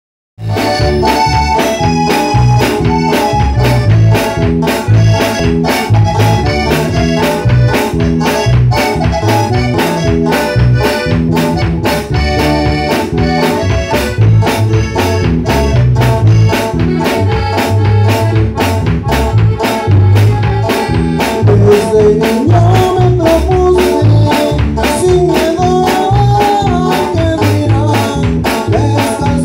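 Norteño band playing live: accordion carrying the melody over an electric bass line, strummed acoustic guitar and a steady drum-kit beat with cymbals. The music starts about half a second in.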